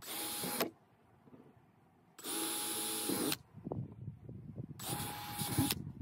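Cordless drill drilling into an old gas tank, run in three short bursts with a steady motor whine, each about a second long. Light crackling sounds fall between the second and third bursts.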